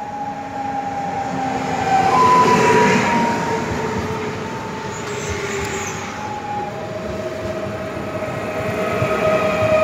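Pesa Elf EN76 electric multiple unit passing close along a platform: a whine of several held tones from its traction equipment that slowly drift in pitch, over the rumble of its wheels on the rails. It is loudest about two to three seconds in, as the cars go by, and swells again near the end.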